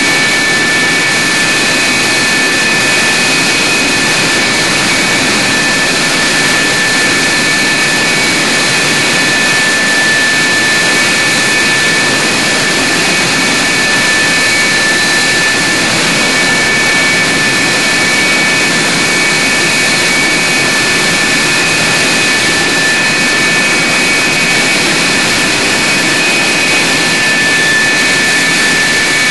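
Lockheed F-104 Starfighter's J79 turbojet running steadily on the ground: a loud, constant jet rush with several steady high-pitched turbine whine tones over it.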